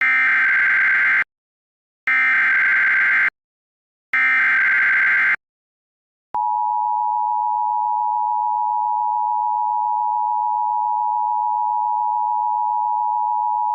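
Emergency Alert System alert opening: three SAME digital header bursts, each about a second long and two seconds apart, then, about six seconds in, the steady two-tone EAS attention signal (853 and 960 Hz sounded together).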